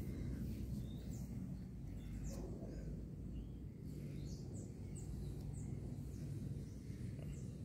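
Steady low background rumble with faint, short, high bird chirps scattered through it, most of them between about two and seven and a half seconds in.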